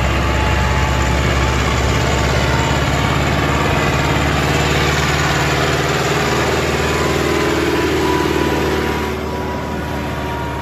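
Farm tractor's diesel engine running hard under heavy load as it drags a harrow through the soil, blowing black smoke. The engine note is steady and loud, easing off slightly about nine seconds in.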